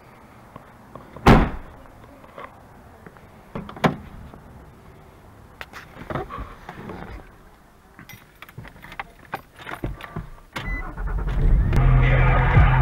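Nissan Xterra: its rear hatch slams shut about a second in, with another knock a few seconds later, then small key and switch clicks, and near the end the engine starts and settles into a steady idle.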